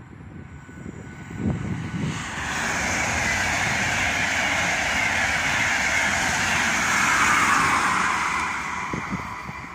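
Intercity passenger train passing through without stopping, pushed by an electric locomotive at the rear: a rushing of wheels and air that swells about two seconds in and slides down in pitch. It is loudest as the locomotive goes by near the end, then starts to fade.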